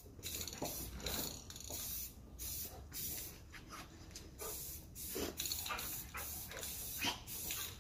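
Aerosol spray-paint can hissing in quick short bursts, one after another, as black paint is sprayed on.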